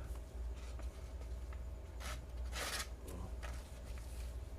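Knife blade slicing through paper: two short, papery swishes, a light one about two seconds in and a stronger one just after. A low steady hum runs underneath.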